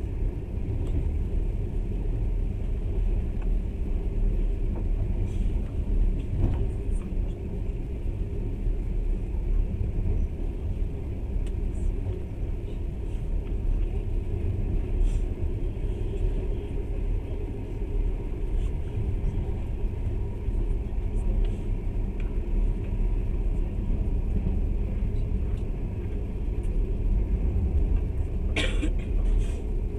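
Passenger train running along the track, heard from inside the carriage: a steady low rumble with a few faint ticks, and a short sharper rattle near the end.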